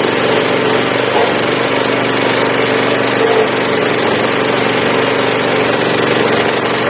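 Stump grinder's engine running steadily at working speed.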